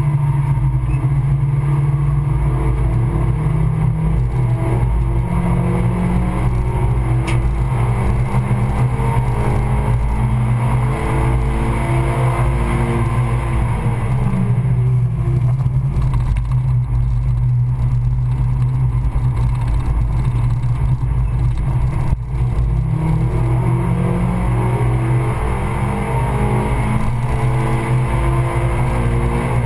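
Suzuki Swift Sport Stage 2 tuned 1.6-litre four-cylinder engine pulling hard on track, heard from inside the cabin. The revs climb, fall away around the middle and climb again. There is a single brief knock a little after two thirds of the way through.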